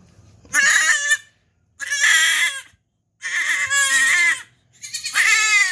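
Goat kid bleating in distress, four loud, high, wavering cries in a row, each about a second long, in protest at being tube fed.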